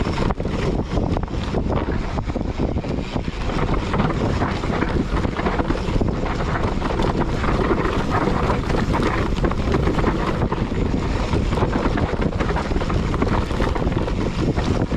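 Mountain bike descending a rough dirt singletrack, with wind buffeting the microphone over tyre noise and a steady stream of rattles and knocks from the bike.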